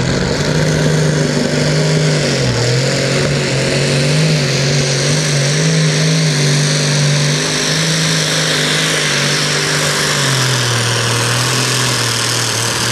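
Modified pulling tractor's engine at full throttle under load during a pull, a loud steady drone whose pitch wavers, dipping about two and a half seconds in and settling lower near ten seconds.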